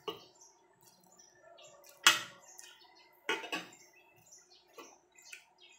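Metal fork and spoon clinking and scraping on a plate while eating: about half a dozen sharp clinks, the loudest about two seconds in.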